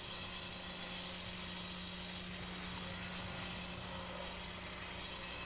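Faint, steady engine drone of roadwork machinery, with no separate knocks or other distinct sounds.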